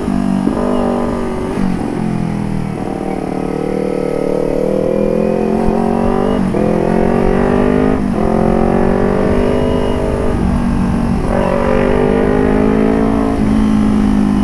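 Motorcycle engine through a DX carbon aftermarket exhaust, accelerating under way. Its note rises in pitch several times with a drop at each gear change, then holds steady near the end. The exhaust sound is smooth and soft.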